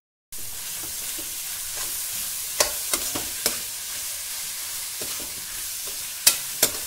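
Vegetables sizzling in hot oil in a metal kadai while being stir-fried with a metal slotted spoon to mix in the spice powders, the spoon clinking and scraping against the pan a few times, with a quick cluster of clinks near the end.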